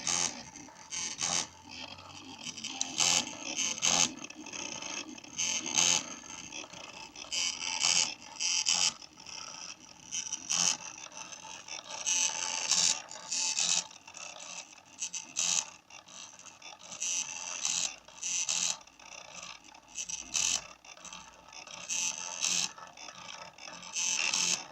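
Small DVD-drive stepper motors of a homemade CNC pen plotter buzzing in many short, irregular stop-start bursts as the axes move the pen.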